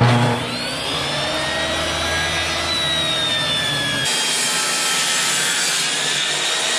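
Benchtop table saw switching on and running under load, its high motor whine sagging slightly as the blade rips along a long board. The sound changes abruptly about four seconds in.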